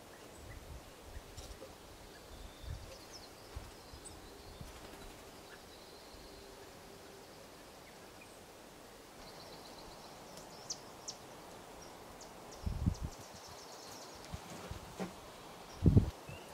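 Small birds calling faintly, short high chirps and a trill, over quiet outdoor background noise, with two low thumps in the last few seconds.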